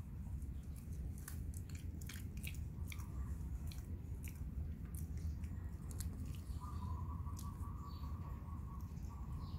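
Yorkshire terrier chewing and biting grass: irregular small crunching clicks as it tears and chews the blades, over a steady low rumble.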